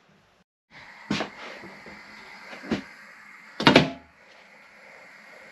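Three knocks and clatters of a metal pot of tar and the tool in it being handled, the last the loudest, over a faint steady hiss.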